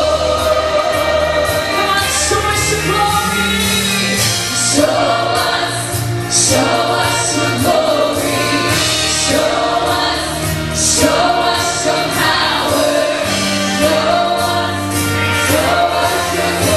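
Gospel church choir singing a worship song with a live band: long held sung notes over a steady bass, with drum cymbals.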